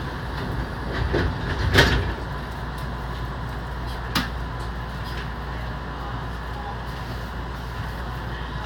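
Electric commuter train heard from inside near the front: a steady low running hum, with a heavy knock just under two seconds in and a sharp click a little after four seconds in.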